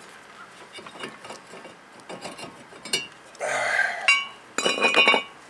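Loose metal brake parts handled on the ground: a few light clicks, a short scraping rush about three and a half seconds in, then a quick run of metallic clinks with a brief ringing near the end.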